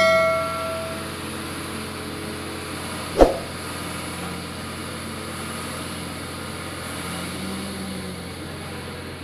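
Komatsu D70LE crawler bulldozer's diesel engine running steadily as it works, a continuous drone. At the very start a bell-like chime from the subscribe-button overlay rings and fades over about a second. About three seconds in there is a single sharp knock.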